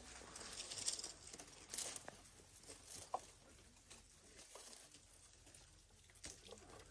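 Faint rustling and crackling of dry grass and twigs as an African elephant feeds, pulling and tearing at the stems with its trunk. A few louder snaps come about one, two and three seconds in.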